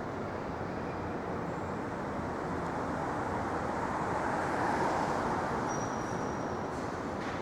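City street traffic: a steady wash of passing vehicles that swells as one goes by around the middle, with a brief thin high whine near the end.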